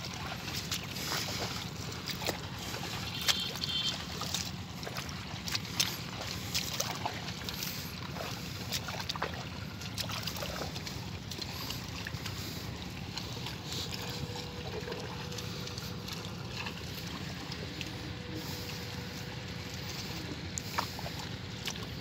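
Squelching and sloshing of waterlogged paddy mud, with scattered short splashes, over a steady low background noise.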